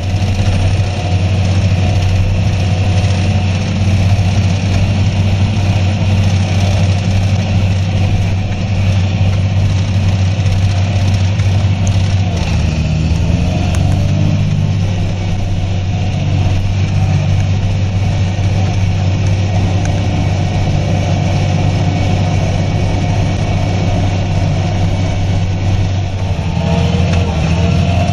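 John Deere 8420 tractor's chip-tuned six-cylinder diesel running steadily under way on the road, a deep, even drone. Its pitch shifts slightly about halfway through and again near the end.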